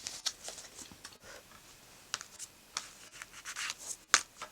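Tarot cards being handled: scattered soft rustles, scrapes and light taps, with one sharper click about four seconds in.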